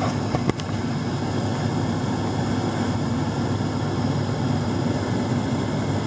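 Gas furnace running with its burners lit: a steady low rushing roar. A light click or two about half a second in.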